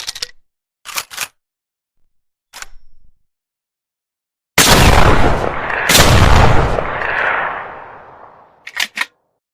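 TOZ over-and-under shotgun fired twice, both barrels about a second and a half apart, each a loud blast with a long fading echo. Sharp metallic clicks from handling the gun's action come before the shots and two more near the end.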